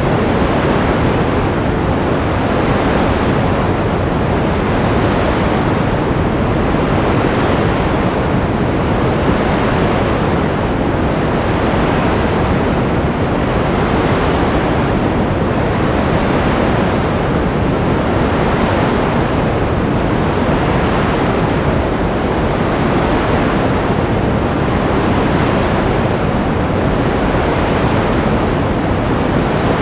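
Steady rush of ocean surf, a dense wash of water noise that swells and eases gently about every two seconds.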